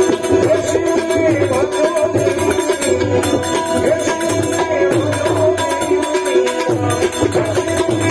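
Live Gujarati devotional bhajan: a harmonium's steady chords with tabla strokes and small hand cymbals (manjira), and a man singing over them.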